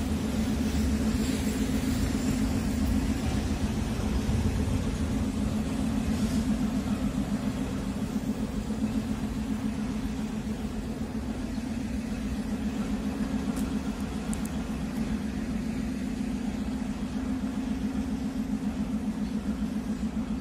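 Steady low drone of idling machinery with a throbbing hum that holds level throughout.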